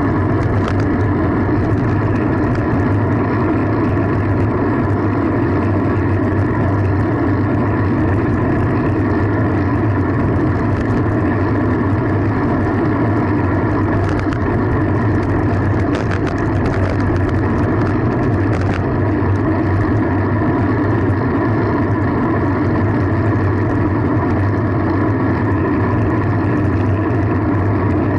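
Steady rush of wind and road noise on the camera's microphone while riding a fixed-gear bike, unbroken throughout, with a few faint ticks midway.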